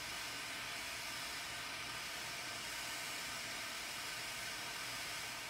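Handheld gas torch burning with a steady hiss as its blue flame heats a steel bluing tray to heat-blue a screw.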